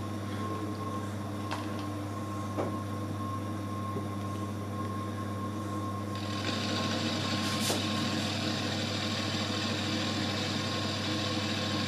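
TAIG micro mill running with a steady motor hum and a thin, steady whine. About six seconds in, a brighter, higher hiss joins as the roughing end mill begins cutting, with a few faint clicks along the way.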